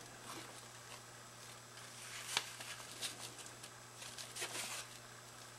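Faint rustling and light clicks of twine and cardstock being handled, with one sharper click about two and a half seconds in.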